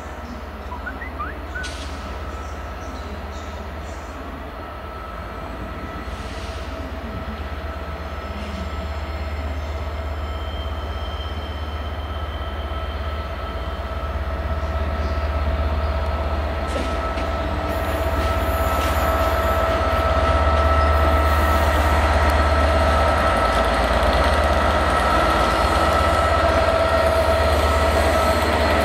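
British Rail Class 67 diesel-electric locomotive, with its EMD two-stroke V12, hauling a passenger train slowly over pointwork as it approaches and passes. It grows steadily louder: a deep engine rumble under a steady high whine.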